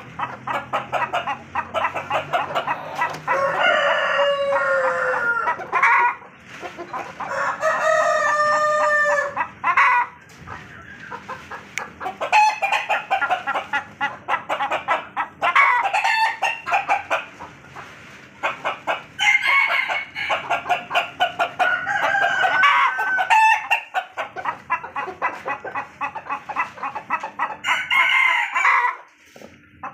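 Chickens in a pen: roosters crowing several times, with clucking in between.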